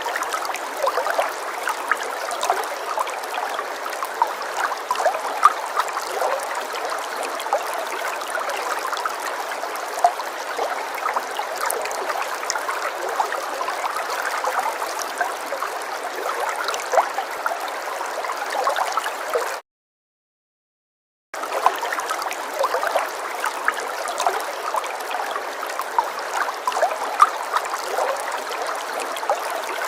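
Falling water splashing steadily, a dense rush of many small splashes with nothing in the deep bass. It cuts out completely for under two seconds about twenty seconds in, then resumes unchanged.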